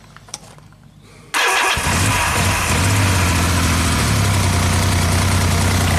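A Yamaha XS750 motorcycle's three-cylinder engine starts about a second in and, after a second of uneven running, settles into a steady idle.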